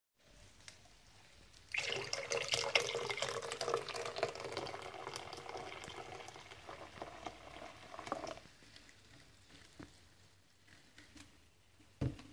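Carbonated mineral water poured from a plastic bottle into a glass bowl of pancake batter, splashing and fizzing for several seconds. As the pour stops, the bubbles keep crackling more faintly; a short knock near the end.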